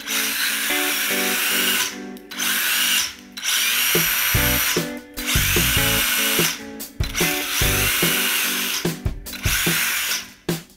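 Small brushless RC car motor (Racerstar 2435, 4500 kV) and its geartrain whining at full-throttle in repeated bursts of one to two seconds with short breaks, as the 1:18 buggy is driven hard on a wooden floor. Background music plays underneath.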